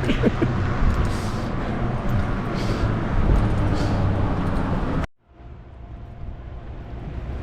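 Steady low rumbling noise that cuts off abruptly about five seconds in, after which a quieter rushing noise builds back up.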